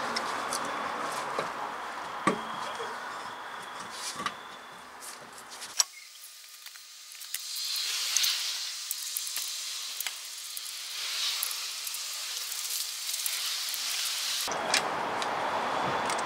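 A car wheel being hung on its hub and the lug nuts threaded on by hand: scattered sharp metal clicks and clinks over a steady hiss. Between about six and fourteen seconds the deeper sound drops out, leaving a thin hiss with faint ticks.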